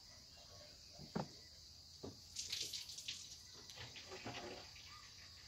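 Faint clicks and light metallic clinks from handling the small gears and parts of a table fan's mechanical timer, with a brief cluster of rattling clicks about two and a half seconds in.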